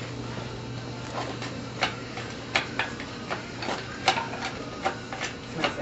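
Shop engine hoist being worked by hand: irregular light metallic clicks and knocks, about two or three a second, over a steady low hum.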